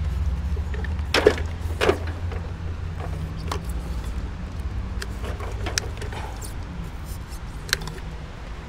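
Steady low engine-like rumble, as of an idling vehicle, under a few sharp knocks and clunks of items being handled, the two loudest about one and two seconds in.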